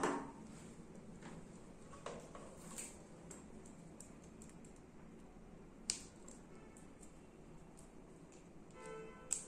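Faint clicks and light handling noise of CCTV cable connectors, a BNC video plug and a DC power jack, being fitted by hand, with two sharper clicks about six seconds in and just before the end.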